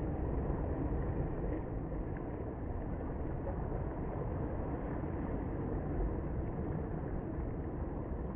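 Steady, muffled wash of surf breaking over a coral reef edge, with low wind rumble on the microphone.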